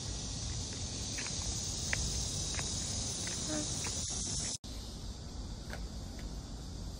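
Steady high-pitched chorus of summer cicadas over a low street rumble. It cuts out abruptly about four and a half seconds in and comes back fainter.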